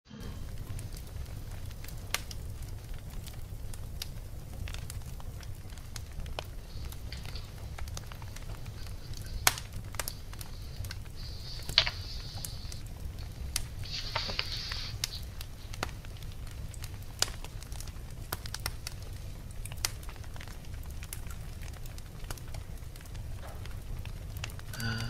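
Crackling fire: a steady low rumble scattered with sharp pops and snaps, and a couple of short hisses a little before halfway.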